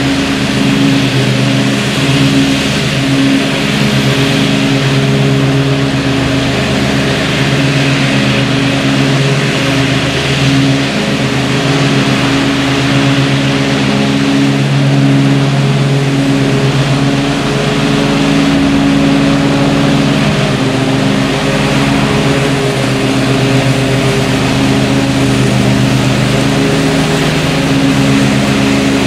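Zero-turn riding mower's engine running steadily at mowing speed while the mower cuts grass, a loud unbroken drone with no stops or big changes in pitch.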